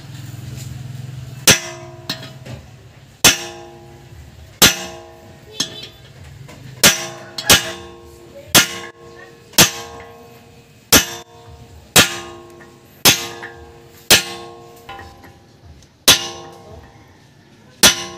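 A hammer strikes a steel socket used as a driver, about once a second, to seat a new front wheel hub bearing into a Hyundai Accent steering knuckle. Each blow is a sharp metal clang with a short ringing tail. A low hum is heard before the first blow, about a second and a half in.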